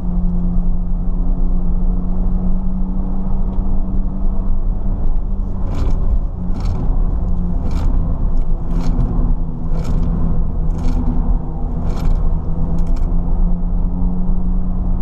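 Ford Fiesta ST's engine running at speed, a loud steady drone. Midway, about eight short sharp noises come roughly a second apart over the engine.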